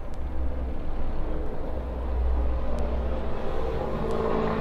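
A low, steady rumble, getting a little louder about two seconds in.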